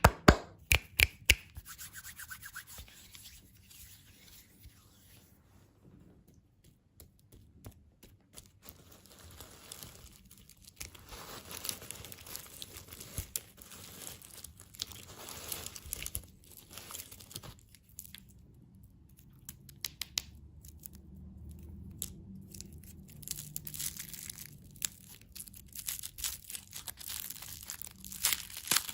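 Candy wrappers being torn open and crinkled: irregular rustling and tearing, with a few sharp clicks in the first second or so and busier crinkling near the end.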